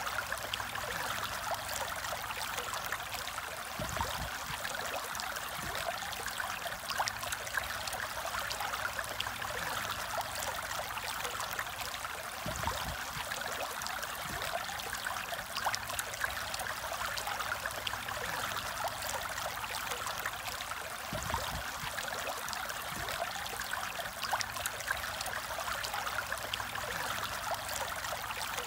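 Aquarium water trickling and splashing steadily. A few faint low bumps come and go.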